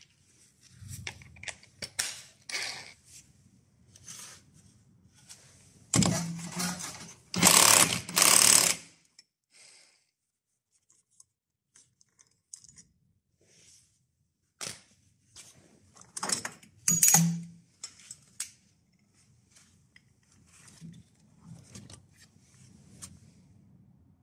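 Metal tools and scooter variator parts clinking and knocking during disassembly, with two louder spells of clattering about six seconds in and again about seventeen seconds in.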